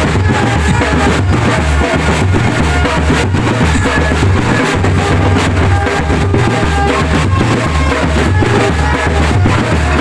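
Loud drumband music with a steady drum beat, snare and heavy bass drum under melody lines, accompanying a gedruk and jathil dance performance.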